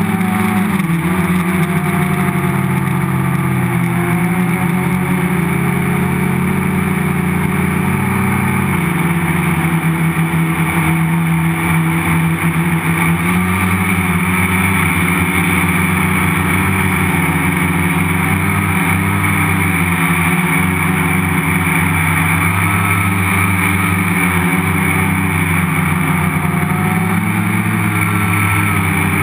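Multicopter's electric motors and propellers running steadily, heard from a camera mounted on the frame; the several motor tones step up and down in pitch now and then as their speeds change.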